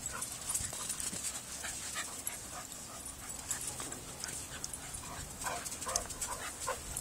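A dog panting in short breaths, repeated several times a second.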